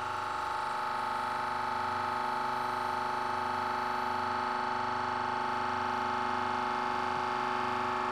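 The deep-sea pressure chamber's pump runs with a steady whine as it builds the pressure from about 44 to about 103 bar, the equivalent of 1 km of depth. It grows slightly louder over the first couple of seconds.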